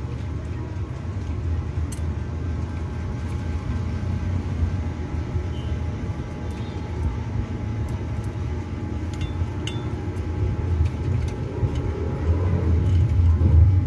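Low, steady engine rumble of a motor vehicle, growing louder near the end, with a few faint clicks over it.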